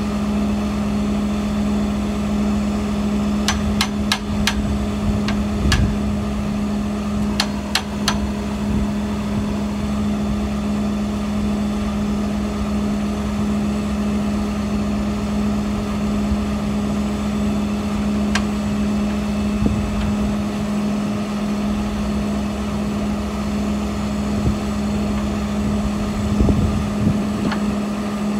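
A heavy machine runs at a constant speed with an even, low drone, over which sharp metal-on-metal clanks come in short runs: about four in quick succession some three and a half seconds in, three more around eight seconds in, and a single one near eighteen seconds. A few dull thumps come near the end.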